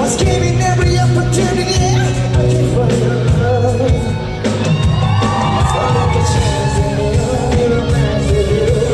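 Live pop-rock band music played loud in a large hall, with a heavy bass line and a male lead vocalist singing held, gliding notes, and some crowd shouts.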